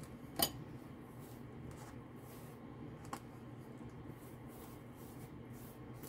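Faint soft rubbing and rustling of hands working a crumbly seasoning mix onto a raw pumpkin slice, with a sharp click about half a second in and a fainter click about three seconds in.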